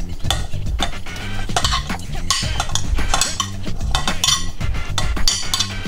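A spoon stirring and scraping through sauce in a cooking pan as chicken pieces go in, with repeated irregular clinks and scrapes of the utensil against the pan. Background music plays underneath.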